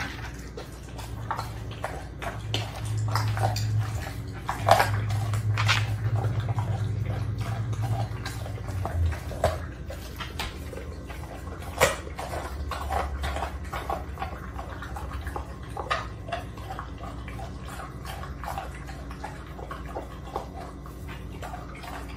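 Pit bull-type dog chewing and tearing at a whole raw chicken: wet smacking and licking with irregular crunches and clicks, and a few louder cracks, the sharpest about 12 seconds in. A low steady rumble runs underneath for the first several seconds.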